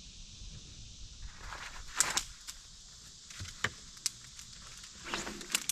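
A run of sharp clicks and knocks, about eight of them, beginning about two seconds in and bunching near the end, over a faint steady hiss.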